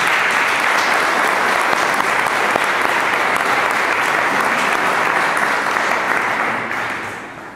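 Congregation applauding, steadily for about six seconds and then dying away near the end.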